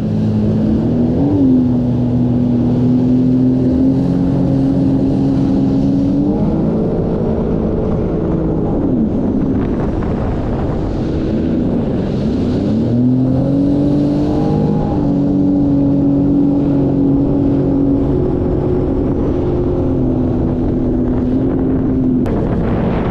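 Sea-Doo jet ski engine running under way. Its pitch holds steady, then drops and climbs back a few times as the throttle is eased off and opened again.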